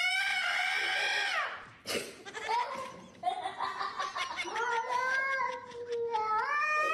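Cat yowling in two long drawn-out calls. The first fades about a second and a half in; the second runs for several seconds and rises in pitch near the end.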